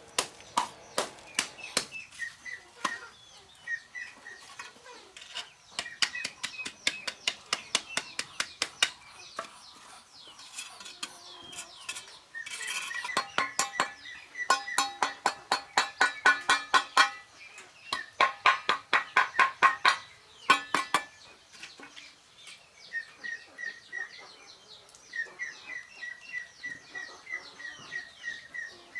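Rapid series of sharp hand-tool strikes, several a second, some with a ringing note, coming thickest in the middle and thinning out near the end. Small birds chirp in the gaps.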